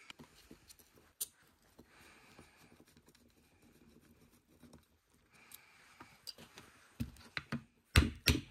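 Small metal clicks and clinks of a snowmobile carburetor being taken apart by hand, with a few sharp knocks near the end.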